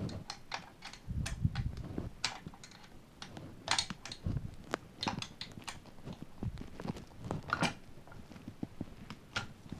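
Allen key clicking and scraping in the screws on the underside of a Snow Wolf M24 rifle, with irregular small clicks and knocks from the gun being handled.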